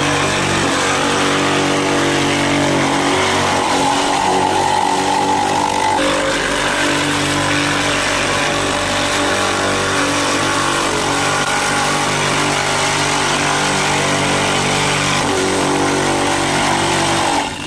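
Electric ice-shaving (gola) machine running steadily as it shaves a block of ice into snow. There is a change in tone about six seconds in, and it cuts off at the end.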